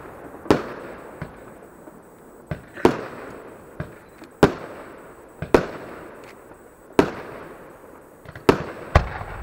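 Fireworks going off: aerial shells bursting in about ten sharp bangs at irregular intervals, each trailing off in an echo.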